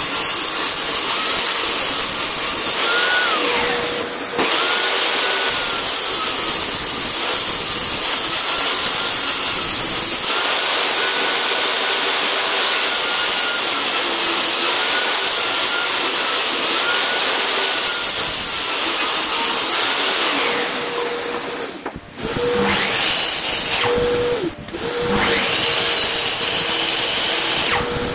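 Table saw running and ripping pine boards: a loud, steady saw noise with a faint whine that bends briefly in pitch now and then, dropping out twice for a moment near the end.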